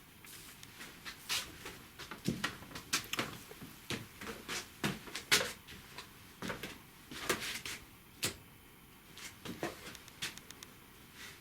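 An irregular series of sharp knocks and clicks, about twenty in ten seconds, some ringing briefly, like hard parts being handled and shut.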